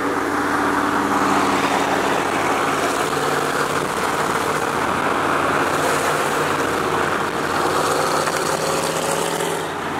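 Steady road and wind noise, with a constant engine drone underneath, heard from inside a vehicle cruising at freeway speed.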